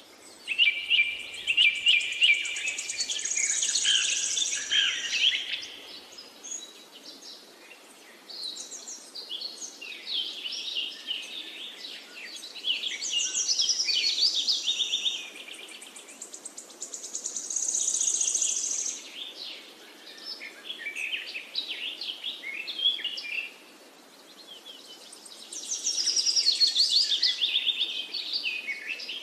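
Songbirds chirping and trilling in repeated bouts of a few seconds each, over a faint steady background noise.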